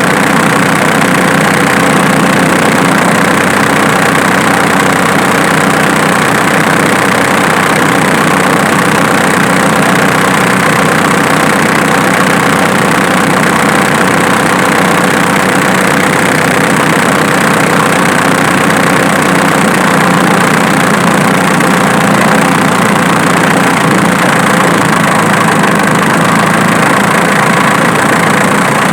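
Diesel engine idling steadily with a fast, even clatter. The snapping noise in this engine was traced to the alternator, not the injection pump.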